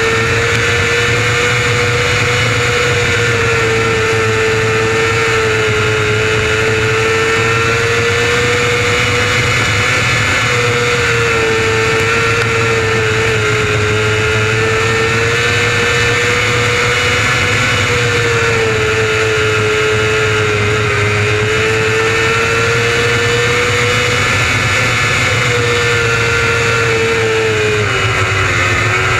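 600cc micro sprint car's motorcycle engine running hard at high revs, its pitch swelling and sagging gently about every eight seconds, with a deeper dip near the end.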